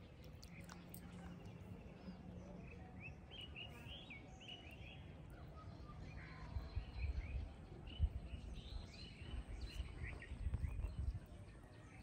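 Small birds chirping in short quick runs of high notes over a steady low outdoor hum. From about six seconds in, uneven low rumbling swells up and becomes the loudest sound, with a sharp peak near eight seconds.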